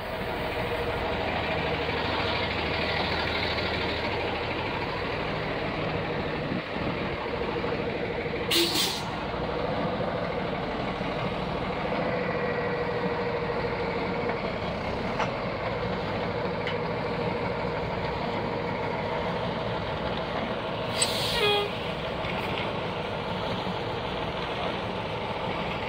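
Diesel engine of a Ford Cargo crane truck running steadily as the truck creeps forward, with two short air-brake hisses, about a third of the way in and again near the end.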